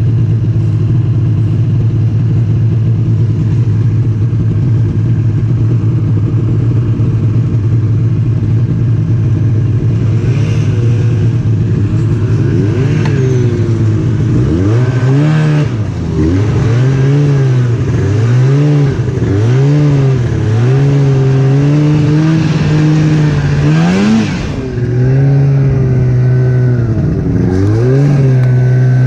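Snowmobile engine running loud at a steady pitch, then from about halfway through its pitch rises and falls again and again as the throttle is opened and eased, with sharp climbs near the end.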